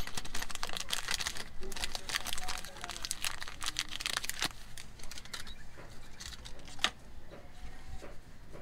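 Small clear plastic zip bag crinkling as gloved hands open it and handle the parts inside. The crackling is dense for about the first four and a half seconds, then thins to scattered clicks, with one sharper click about seven seconds in.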